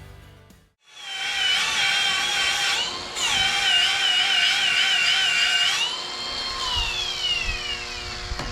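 High-speed handheld electric power tool running with a high whine that wavers in pitch as it bears on the work. It cuts out briefly about a third of the way in, then runs free and winds down with a falling pitch near the end.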